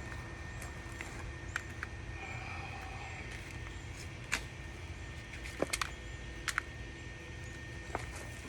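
Scattered small clicks and light knocks, as of broken-up coal being handled and sprinkled in a forge's fire pan, over a steady low background rumble.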